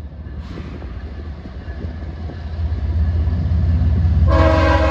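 Diesel locomotive of a CSX maintenance-of-way rail train approaching, its low engine rumble growing louder, then its air horn starts a loud blast about four seconds in.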